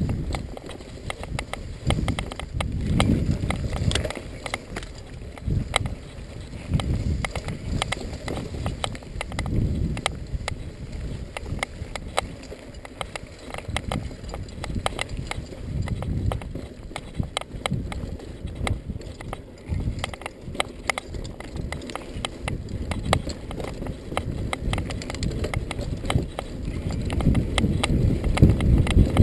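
Hardtail mountain bike rolling down a bumpy dirt singletrack: a low rumble from the wide knobby tyres, with frequent clicks and rattles of chain and frame over the bumps, getting louder near the end.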